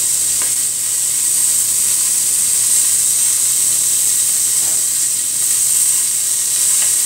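Seasoned boneless, skinless chicken breasts sizzling steadily as they fry in a hot pot, with a few faint taps as the pieces are turned over.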